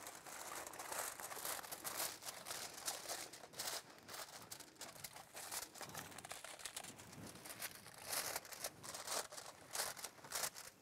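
Aluminium foil crinkling in irregular crackles as it is pressed and folded over a metal baking pan.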